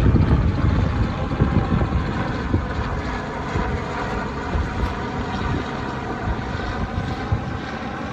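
Tour helicopter flying overhead, its rotor and engine running steadily and slowly fading as it moves away.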